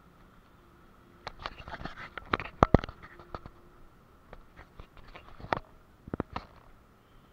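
Irregular sharp clicks and knocks in two clusters, the loudest pair near the middle, over a faint steady high hum.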